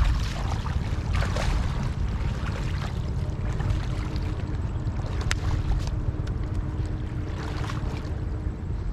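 Wind rumbling on the microphone over light sloshing and splashing of shallow lake water, with a single sharp click about five seconds in.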